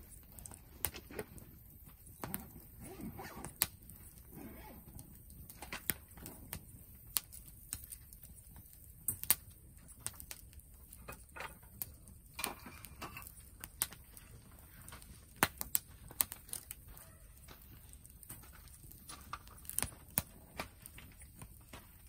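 Firewood burning in a portable fire grate, crackling with irregular sharp pops, a few much louder than the rest.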